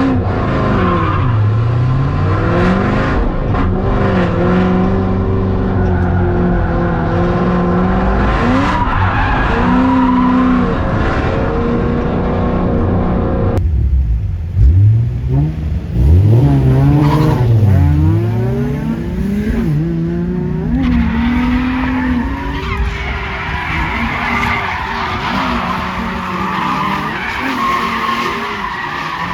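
Cadillac CTS-V's LS2 V8 repeatedly revving up and down under load while drifting, with the rear tyres squealing and skidding. The sound changes abruptly about halfway through, and the deepest, loudest revs come just after that.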